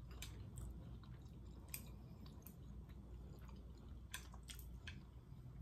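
A person chewing beef mechado, a Filipino beef stew: faint close-up chewing and wet mouth sounds, with a number of short sharp clicks scattered through.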